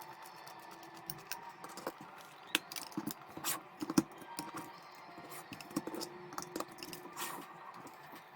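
Irregular small clicks, taps and short scrapes of a plastic pocket calculator being handled and taken apart.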